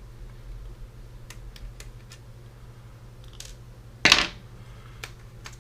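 Light clicks and taps of small plastic camcorder parts being handled during disassembly, with one louder, sharp clack about four seconds in.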